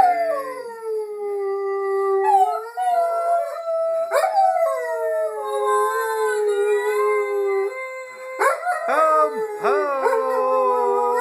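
Dog howling along to human singing in long, drawn-out notes that slide down and back up in pitch. About eight seconds in, the howl breaks into a few short rising yips before settling into a held note again.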